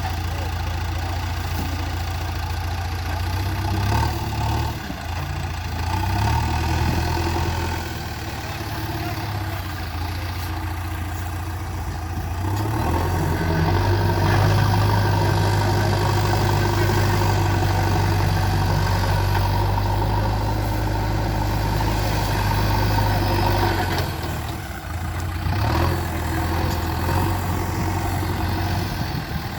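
JCB 3DX backhoe loader's diesel engine running, rising in revs a few times and held higher for about ten seconds in the middle as the hydraulics work, then dropping back.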